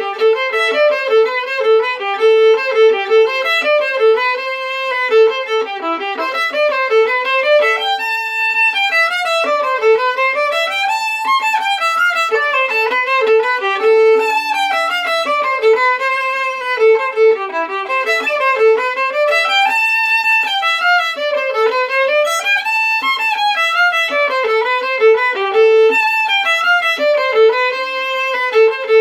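Solo fiddle playing a folk tune: quick runs of bowed notes climbing and falling in a repeating pattern.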